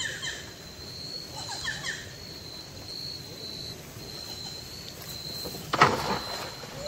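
A cast net thrown from a boat lands on the river with a sudden sharp splash near the end. A steady high insect trill runs underneath, broken now and then.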